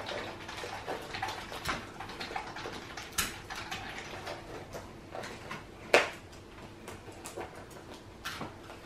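Hands handling a paper craft and sticky tape: scattered light taps, crinkles and rustles of paper, with one sharper snap about six seconds in.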